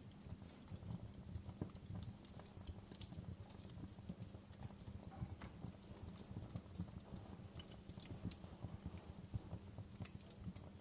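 A fire crackling, with frequent small, irregular pops and snaps over a low steady rumble.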